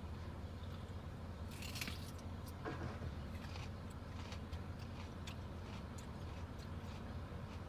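A steady low engine hum under scattered knocks and clatter from cardboard and trash being thrown into a rear-loading garbage truck's hopper, muffled as heard from inside a car. A short burst of noise comes about two seconds in.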